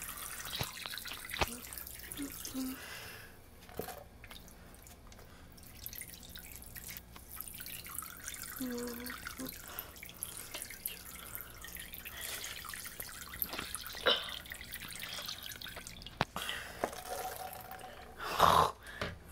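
Water dripping into a sink full of standing water, single drops falling at irregular intervals, with a short louder noise near the end.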